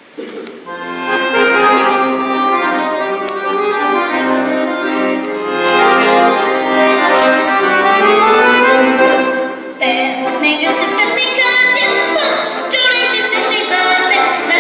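Accordion playing a slow tune in long held chords. It comes in abruptly at the start, and the notes turn brighter and more wavering about ten seconds in.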